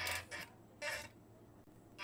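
Music played through a bare speaker driven by a repaired Star Sound car amplifier. It cuts out about a quarter second in, a short snatch comes back near the middle, and then there is a quiet gap.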